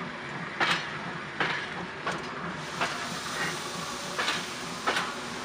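Steam locomotive pulling a train of passenger coaches away, a hissing chuff about every 0.7 seconds over the steady rolling noise of the coaches.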